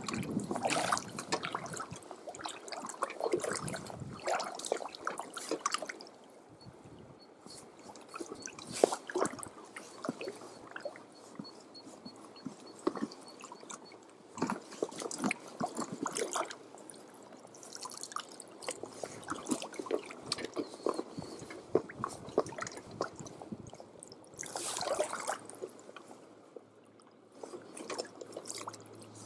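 Shallow water splashing and dripping in irregular bursts as a hand net is swept through a creek and lifted out, with a few louder splashes and short quieter spells.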